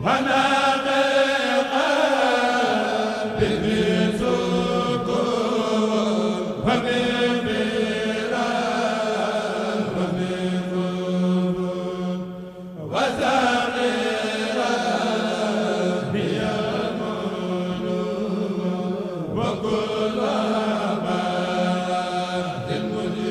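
A Mouride kourel, a group of men, chanting a qasida in unison without instruments, the voices over a steady held low note. The chant breaks off briefly about halfway and the group comes in again on a new phrase.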